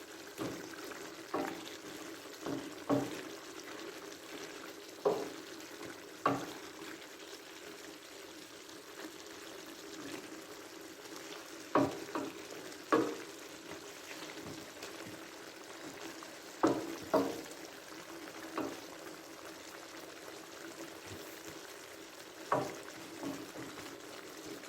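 Chicken and vegetables sizzling in a pan while being stir-fried, with a spatula knocking against the pan at irregular intervals, about a dozen sharp strikes.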